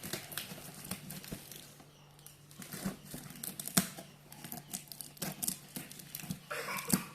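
Packaging being handled during unboxing: irregular crinkling and tearing with scattered sharp clicks, the sharpest a little under four seconds in and near the end.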